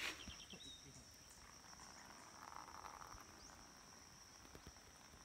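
Insects trilling steadily at one high, even pitch, faintly, with a sharp click at the very start.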